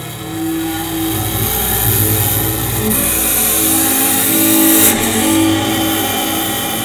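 Double bass bowed hard, giving a rough, noisy drone over steady low tones. It grows louder over the first two seconds, and a hissing upper layer swells and cuts off sharply about five seconds in.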